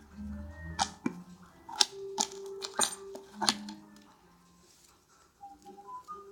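Several sharp clicks and knocks of things being handled, over faint steady tones, with a short run of notes stepping down in pitch near the end.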